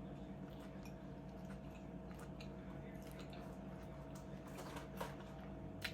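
Faint eating sounds: scattered small clicks and squishes of a person chewing food, with a couple of sharper clicks near the end, over a steady faint hum.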